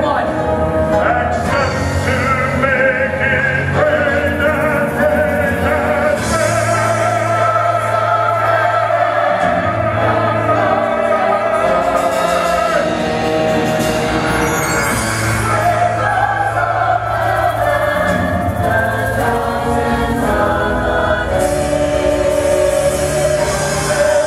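A mixed choir singing long held notes over instrumental accompaniment with sustained bass notes, in a live musical-theatre number.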